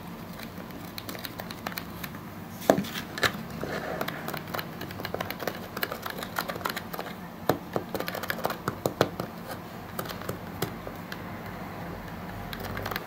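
Small clicks and taps of a hard clear-plastic toy being handled while powder is added to its chimney through a thin tube, with one sharper knock a couple of seconds in.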